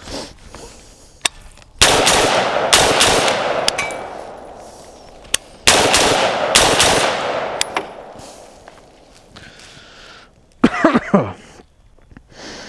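Daniel Defense DDM4 V7 AR-15-style rifle fired as two shots, then two more about four seconds later, each group ringing out with a long echo. Near the end comes a short falling vocal groan from the shooter, who has caught the rifle's gas blowback in the face.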